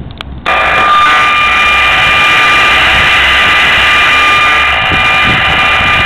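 Handheld RF radiation meter's audio output switched on about half a second in: a loud, steady, noisy buzz with a steady high tone through it. It is the meter's audible rendering of the microwave radiation from nearby cell antennas.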